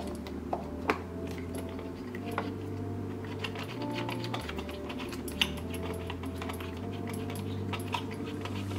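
Small sharp plastic clicks and taps, a few each second, as a GoPro Hero 7 Black action camera and its plastic mounting frame are handled and adjusted, over a low steady background drone.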